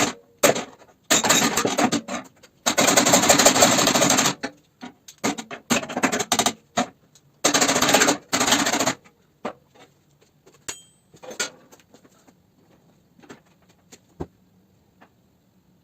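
Harsh, crackling metalwork noise in two bursts of a few seconds each, with scattered clicks and knocks between them; after the second burst only faint occasional knocks remain.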